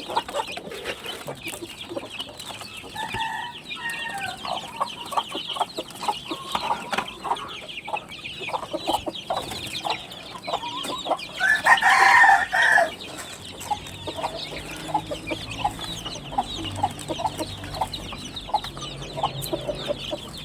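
Backyard chickens clucking and calling steadily while they feed, with one loud rooster crow about twelve seconds in.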